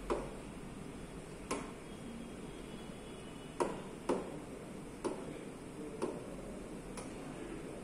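A stylus pen tapping on the glass of an interactive touchscreen panel: seven sharp taps at uneven intervals, over a steady low background hum.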